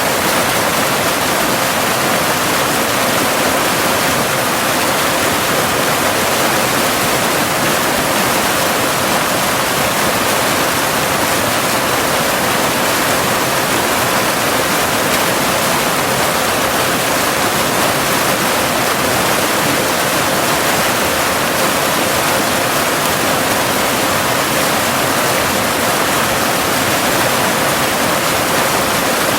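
Cascading waterfall rushing steadily and evenly, with no breaks or changes. Underneath runs a faint steady tone near 528 Hz, the added binaural tone.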